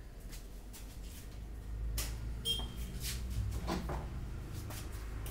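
A few light knocks and clicks, starting about two seconds in, over a steady low hum.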